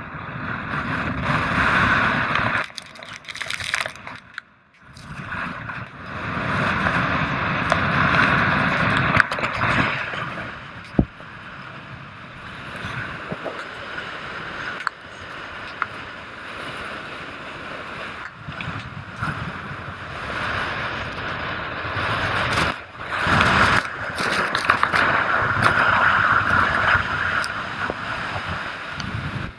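Mountain wind buffeting the camera's microphone in strong gusts, a rushing roar that swells and drops, nearly falling away about four seconds in and again past twenty seconds.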